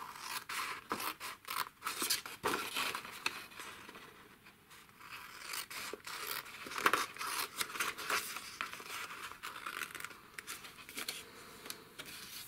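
Scissors cutting through a sheet of patterned designer paper: a run of short, irregular snips mixed with the rustle of the paper sheet as it is handled.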